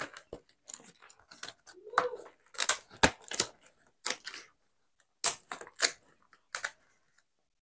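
Dry sal leaves crackling and rustling in the hands as they are folded and joined into a leaf plate, in short irregular crackles with brief pauses between.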